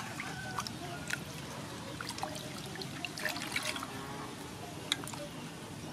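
Water sloshing and splashing in a steel bowl as hands rub and rinse whole sole fish, with irregular small splashes and drips. There is one sharper splash about five seconds in.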